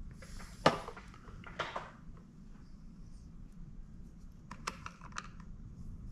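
Painting tools handled at the palette: a short rustle with one sharp knock about half a second in, another brief rustle, then a quick run of small clicks about four and a half seconds in.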